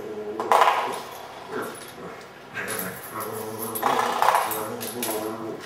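Border Collie puppy growling and whining in play, in several bursts, as it bites at a springy doorstop that twangs back at it.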